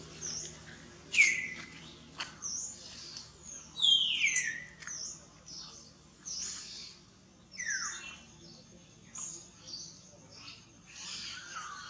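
Baby monkey crying: a series of high-pitched squeals that fall in pitch, about four clear ones, with shorter high chirps in between.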